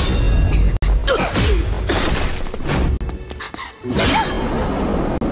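Animated fight-scene soundtrack: dramatic background music with heavy impact and blast sound effects, a brief lull a little past three seconds in, then another hit.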